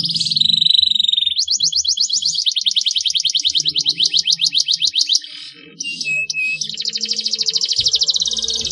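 Domestic canary singing: long, rapid trills of repeated high notes. The song breaks briefly about five seconds in for a couple of short lower chirps, then another long trill begins.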